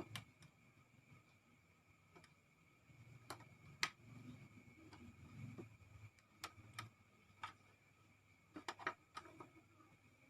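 Faint, irregular small clicks, about a dozen scattered through, with a quick cluster near the end, over a quiet room with a faint steady high whine.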